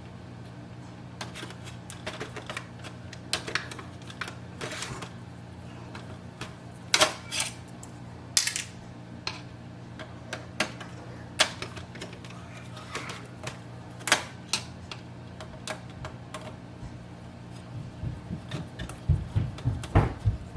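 Irregular plastic clicks, taps and knocks of an Epson WorkForce WF-2860 printer's parts being opened and worked loose by hand, with a few louder knocks spread through and a busier cluster near the end.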